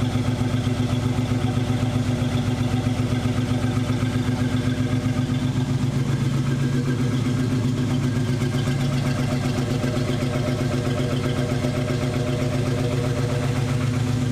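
Box-body Chevrolet Caprice Classic engine idling steadily with a fast, even pulse. It carries a ticking that the owner suspects is a lifter, since the tick was still there after the exhaust bolts were tightened.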